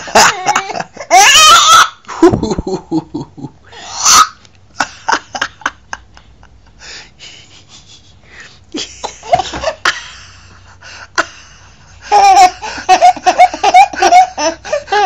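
Baby laughing in fits: loud bursts near the start and again around four and nine seconds, a quieter lull between them, then a long run of rapid repeated laughs from about twelve seconds on.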